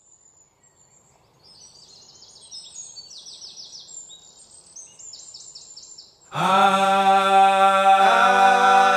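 Birds singing short, repeated high chirping phrases over faint outdoor background noise. About six seconds in, loud music starts abruptly with a held chord of sung voices, like a choir, which carries on to the end.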